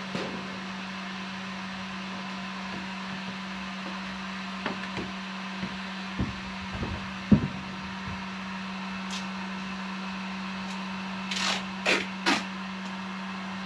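A steady low hum with scattered knocks and clicks of handling work, the sharpest knock about halfway through, and a few quick scrapes near the end.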